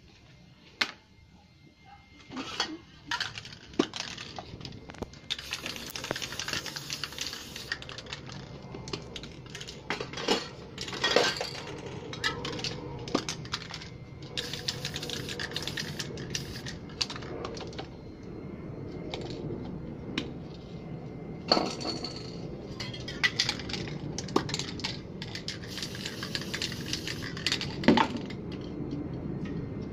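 Aerosol spray paint can hissing in several bursts as black paint is sprayed onto paper, with sharp clicks and knocks of cans and caps being handled and set down on the table.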